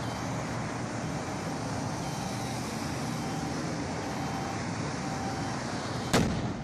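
Steady highway traffic noise, then about six seconds in a single sharp, loud blast as a gas tank on the burning truck explodes into a fireball.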